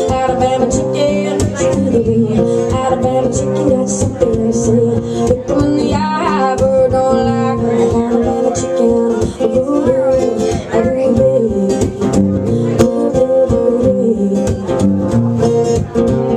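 A woman singing along to her own acoustic guitar, strummed steadily throughout.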